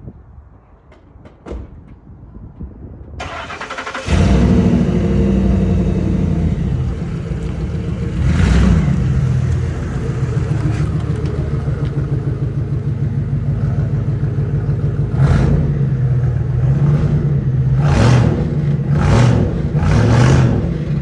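Ford F-150 started up: a few light clicks, a brief crank about three seconds in, then the engine catches and idles loudly through its exhaust. The throttle is blipped several times, mostly near the end.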